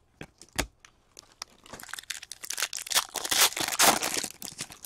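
A foil hockey card pack wrapper being torn open and crinkled by hand, a dense crackling that builds through the middle and peaks near the end. It is preceded by a couple of sharp taps of cards being handled.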